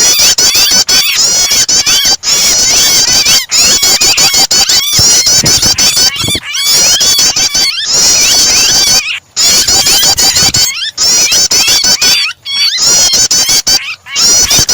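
Dense, shrill, rapid chattering of prenjak (prinia) calls mixed with the frantic distress cries of a trapped bird, a birdkeepers' starter track used to provoke songbirds. It runs almost without pause, broken by short gaps about every one and a half seconds.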